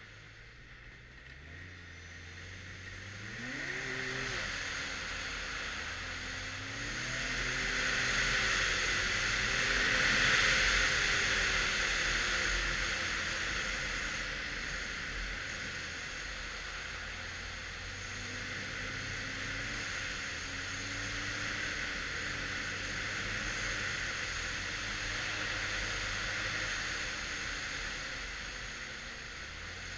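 Arctic Cat XF 1100 Turbo snowmobile's turbocharged three-cylinder four-stroke engine running along a trail. Its pitch climbs under acceleration about four seconds in and again between about seven and ten seconds, then eases back to a steady cruise. A rushing hiss rises with the speed and is loudest around ten seconds.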